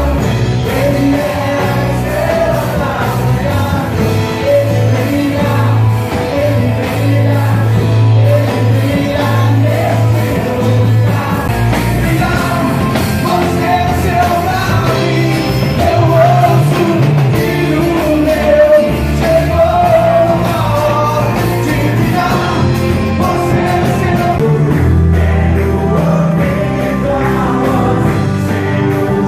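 Christian worship song with singing over a full band, with bass, drums and guitar and a steady beat.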